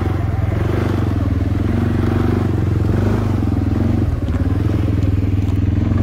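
A small motor vehicle's engine running steadily under way, its pitch wavering a little up and down.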